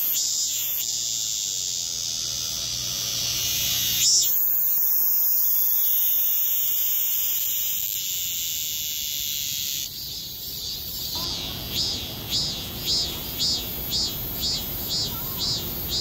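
Cicadas singing at very close range: a loud, steady high-pitched buzz whose character changes abruptly twice. From about 11 seconds in, the song becomes a rhythmic pulsing call of about two pulses a second.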